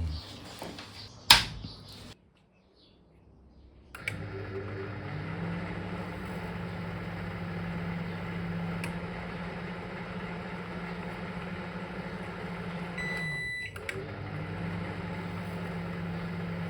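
Repaired Sharp R270 microwave oven on a test run: a sharp click, a short pause, then the oven starts and runs with a steady low hum. Near the end it gives one short beep, the hum drops out for a moment and starts again.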